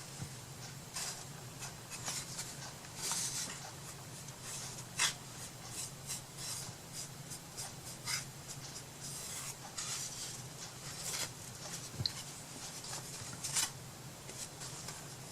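Paintbrush strokes on a small wooden box, a run of short, irregular scratchy strokes with a few sharper ticks, over a steady low hum.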